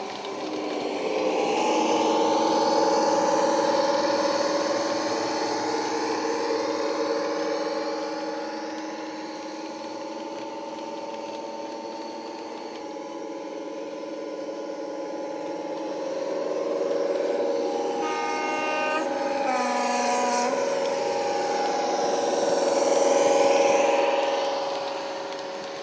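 Factory-fitted DCC sound in an Accurascale Class 55 Deltic model, playing the Napier Deltic engine note through the model's small speaker, with not much bass. The note grows louder and fades as the train passes. About 18 seconds in, a two-tone horn sounds, a higher blast then a lower one.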